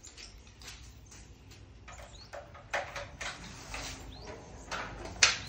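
Scattered clicks and clunks from a motorcycle being handled and rolled by hand, with no engine running; one sharp clack near the end is the loudest. A few short bird chirps sound in the background.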